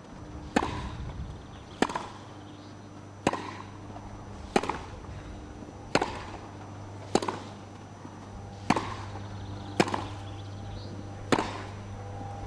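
Tennis rally on grass: racquets hitting the ball back and forth in a steady rhythm, nine sharp strikes about every second and a half.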